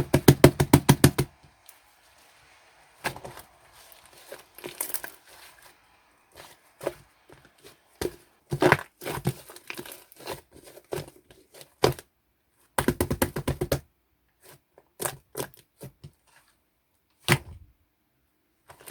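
Slime being squished and pulled by hand: bursts of rapid sticky clicks and pops, with single crackles between them.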